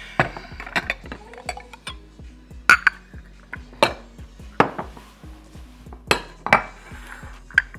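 Bowls and dishes being handled and set down, knocking and clinking against each other in a string of short, sharp clinks, with soft background music underneath.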